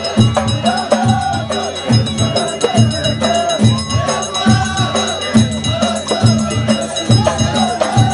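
Amazigh folk troupe performing: voices singing a melodic line over a steady drum beat, with ringing percussion above.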